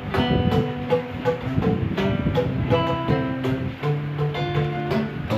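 Traditional Vietnamese band playing live, plucked string instruments picking out quick runs of notes.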